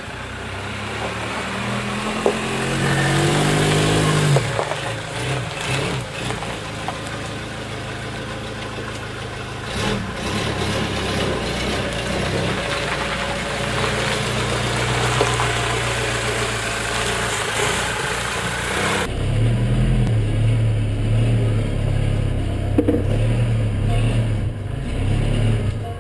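Breakdown truck's engine running, revved up briefly a few seconds in, then running steadily; about two-thirds of the way through the sound changes suddenly to a lower, pulsing engine note.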